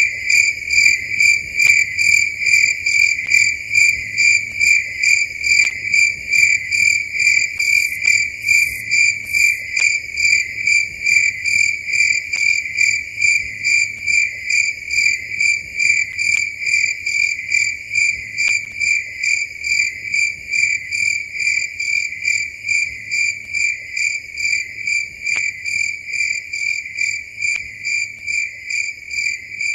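Cricket chirping in a steady, even rhythm, about two high-pitched chirps a second, easing slightly in loudness toward the end.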